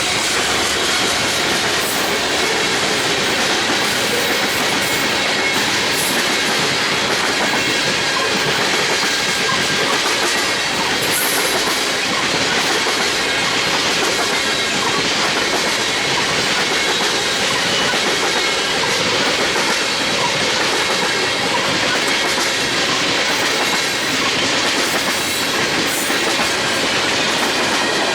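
Train's cars rolling past at close range: a steady, loud rush of wheels on rail with clickety-clack over the rail joints, unbroken for the whole stretch.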